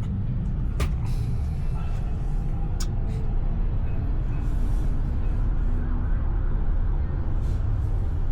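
A motor vehicle engine running steadily with a low rumble, with two sharp clicks about a second in and about three seconds in.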